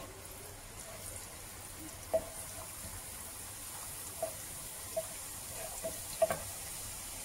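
Chopped garlic sizzling in hot oil in a nonstick wok, a steady soft hiss, while a wooden spatula stirs it and knocks against the pan about five times.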